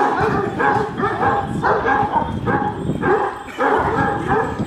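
Kangal shepherd dogs barking over and over, about two barks a second, the barks overlapping.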